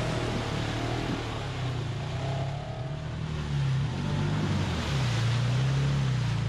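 Side-by-side UTV engines revving, their pitch rising and falling, as the machines churn through mud.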